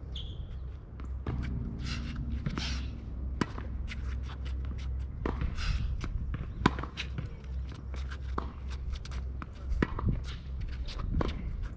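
Tennis rally on a hard court: sharp pops of racket strikes and ball bounces, among them a loud strike about seven seconds in, with the player's footsteps and shoes scuffing on the court. A steady low rumble runs underneath.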